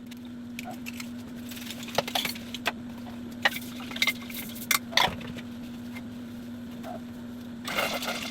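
Scattered clinks and knocks of household objects being handled, over a steady low hum, with a busier run of clatter near the end.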